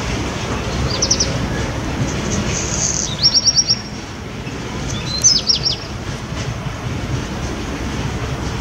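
A small songbird singing three short phrases of quick, high notes, over a steady low rumble.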